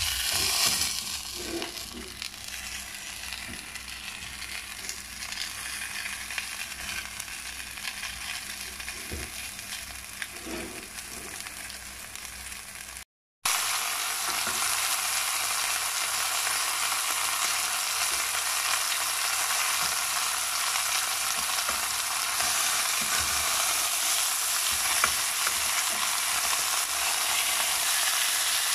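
Marinated chicken leg quarters sizzling as they brown in a stainless steel pot over medium heat, with a few scrapes and knocks of a silicone spatula. The sizzling breaks off briefly about halfway through, then comes back louder and steadier.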